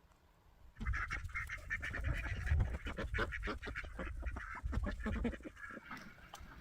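A flock of waterfowl calling: a dense run of quacks and honks that starts about a second in and cuts off suddenly at the end.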